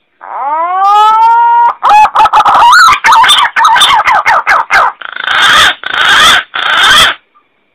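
Green pigeon (punai) calling: a rising whistle, then a quick run of warbling notes, ending in three harsh rasping notes.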